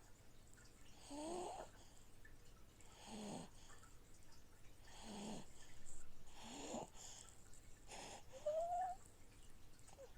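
Slow snoring, about five breaths roughly two seconds apart, some with a squeaky whistling pitch that rises on the last one. A fish-tank filter runs faintly underneath, moving water.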